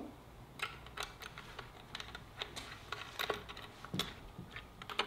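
Light, irregular metallic clicks of washers and nylock nuts being handled and started by hand onto the bolts of a boat steering-helm mount.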